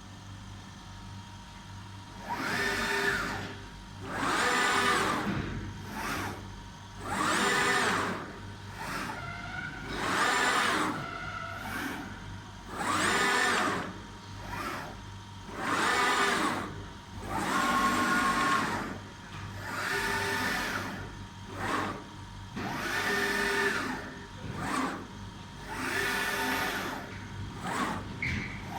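Automatic glass CNC cutting machine running: its motors whine in repeated moves, each swelling and fading over about a second, roughly every two to three seconds, over a steady low hum.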